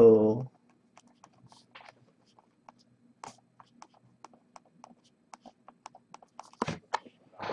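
Fingers handling and tapping a cardboard trading-card hobby box: a scatter of light ticks and scratches, with a few louder knocks near the end, over a faint steady hum.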